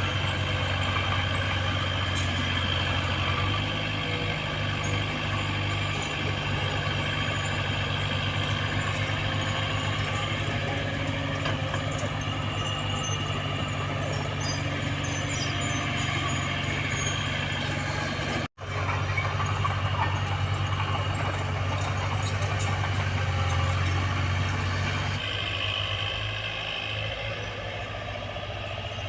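Diesel engine of an earthmoving machine running steadily under load, with a constant low drone. The engine note shifts slightly twice, and the sound cuts out for an instant about eighteen seconds in.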